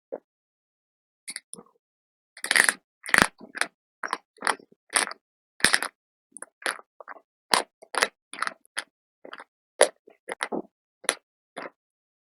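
Slate pencil wafers being bitten and chewed close to the microphone: a quick run of sharp, separate crunches, about two a second, with silence between them.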